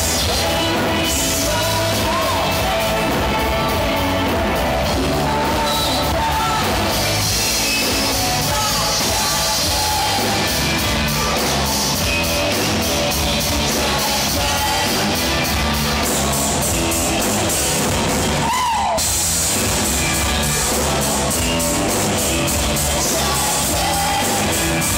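A live rock band playing loudly, with drums, amplified instruments and a sung vocal line.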